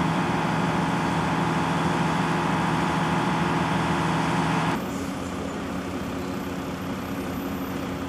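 Heavy vehicle engine running steadily at a constant pitch. About five seconds in the sound cuts off abruptly to a quieter, lower engine hum.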